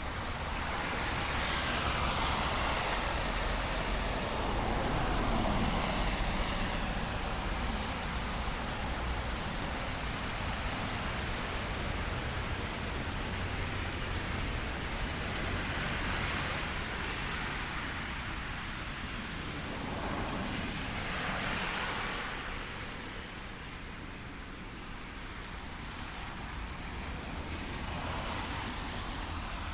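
Several cars passing one after another, their tyres hissing on the rain-wet road and swelling and fading with each pass, over light rain.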